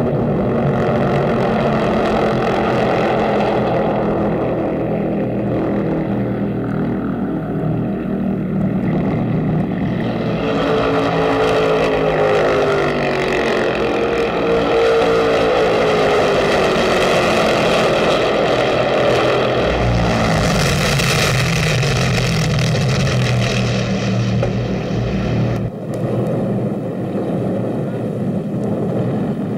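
Several 1963 NASCAR stock cars' V8 engines racing flat out on the track. The engine note swells and its pitch rises and falls as the cars go by, and it turns duller near the end.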